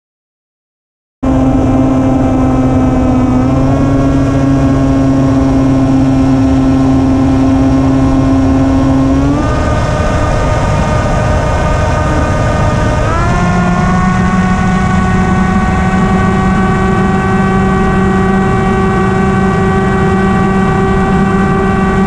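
An FPV flying wing's motor and propeller, recorded on board, with a steady droning whine over rushing wind. The whine steps up in pitch three times as the throttle is raised. The sound cuts out for about the first second.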